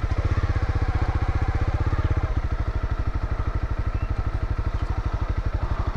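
Single-cylinder motorcycle engine running at low revs as the bike rolls slowly, a steady, even train of rapid firing pulses.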